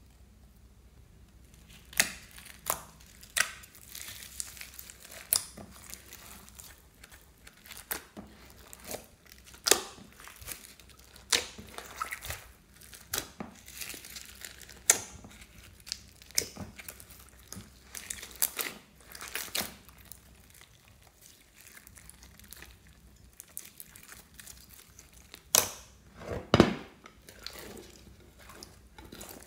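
Clear slime full of glitter, sequins and foam beads being squeezed and kneaded by hand: an irregular string of sharp wet pops, clicks and crackles, with a couple of louder pops near the end.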